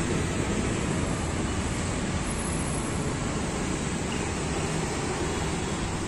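Steady rushing noise with a low rumble and no distinct events.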